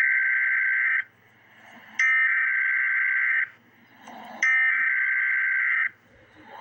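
Emergency Alert System SAME header: three identical bursts of digital data tones, each about a second and a half long with a pause of about a second between them. These are the coded header that identifies the alert.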